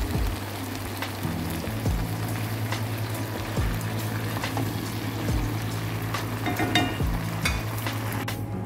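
Chicken livers sizzling and simmering in the juices they release in a frying pan, with a wooden spatula scraping and knocking against the pan about once a second as they are stirred.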